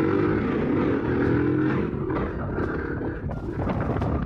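Small motorcycle engine running under way, even for about two seconds, then sputtering and misfiring unevenly. The rider suspects the CDI ignition unit he installed that day.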